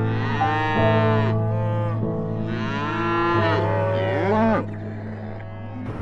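Calf mooing three times, long drawn-out calls, the last one shorter, over soft background music.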